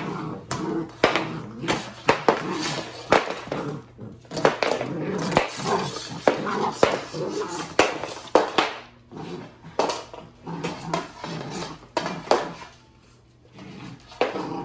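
A broom's handle knocking and its head scraping across a hardwood floor as a puppy drags and tugs at it: a run of irregular knocks and scrapes, with a short lull near the end.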